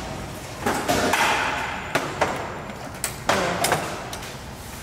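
Metal paint cans knocking and clanking as they are handled: a handful of sharp knocks, some in quick pairs, the loudest about a second in and again around three seconds.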